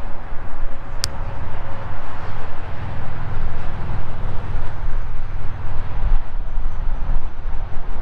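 Jet airliner taking off, heard as a steady low rumble, with a single sharp click about a second in.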